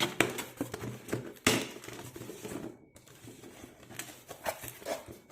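Product packaging being handled and opened: irregular crinkling and rustling with scattered clicks and knocks, the sharpest right at the start and about a second and a half in.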